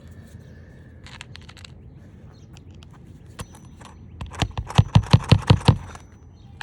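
A hammer driving a roofing nail through a replacement asphalt shingle: a few faint taps about a second in, then a quick run of about nine sharp strikes, roughly five a second, starting about four seconds in.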